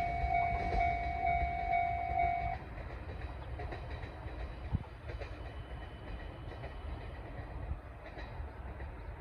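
Level-crossing alarm ringing its repeated electronic clang, cutting off suddenly about two and a half seconds in, over the low rumble of a KiHa 110-series diesel railcar pair running away down the line. The rumble dies down, with a single sharp knock about five seconds in.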